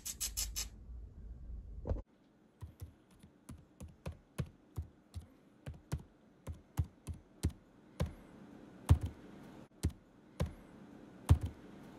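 Computer keyboard typing: separate keystroke clicks at an uneven pace of about two or three a second, a few of them louder than the rest.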